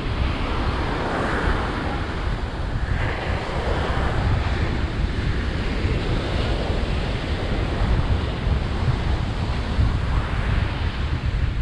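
Ocean surf breaking and washing up the beach in slow swells, with wind buffeting the microphone.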